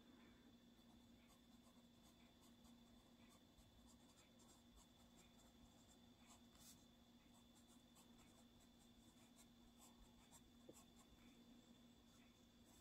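Faber-Castell Castell 9000 graphite pencil scratching faintly on sketchbook paper in short, quick strokes while writing lettering.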